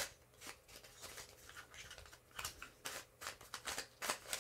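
Plastic pieces of a Container Cube, a Skewb-type twisty puzzle, clicking and clacking quietly as it is turned by hand. The clicks come irregularly, about a dozen of them, with the sharpest one at the very start.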